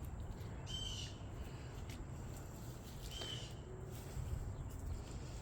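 A bird chirps twice, two short high notes about two seconds apart, over a faint low outdoor rumble.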